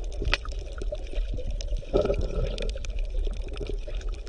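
Water bubbling and trickling, with many small irregular splashes over a steady low hum.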